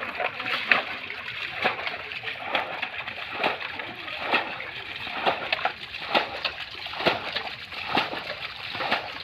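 Splashing in shallow muddy pond water, a regular splash about once a second over a steady watery hiss.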